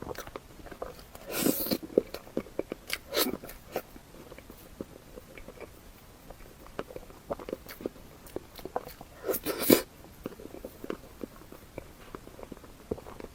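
Close-miked eating sounds: rapid wet mouth clicks of chewing throughout, with louder bites about a second and a half in, around three seconds in, and near the end.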